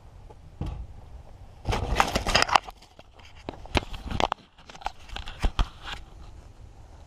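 Handling noise from a camera being picked up and moved around: rustling of fabric against the microphone with a dense patch of crackling about two seconds in, then scattered sharp clicks and knocks against the wooden frame.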